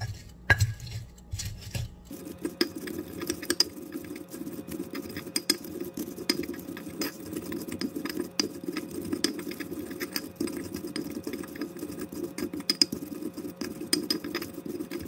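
Stone pestle crushing and grinding green bird's-eye chillies and garlic with salt in a stone mortar (Indonesian ulekan and cobek): a few knocks, one sharp one about half a second in, then from about two seconds a continuous gritty rubbing of stone on stone full of small clicks.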